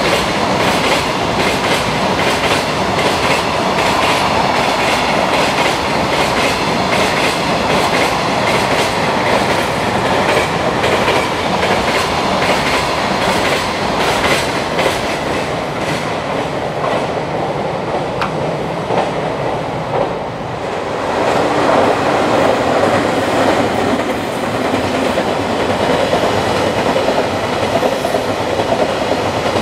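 Long container freight train running fast over rail joints on concrete slab track on a viaduct, with a steady clickety-clack of wheelsets over the joints. About two-thirds of the way through, the sound switches to a second freight train passing, a smoother rushing noise with fewer clicks.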